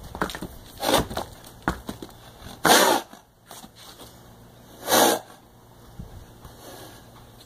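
Horse hooves striking the dirt a few times in the first two seconds, then the horse blowing loudly through its nose twice, each snort lasting about half a second.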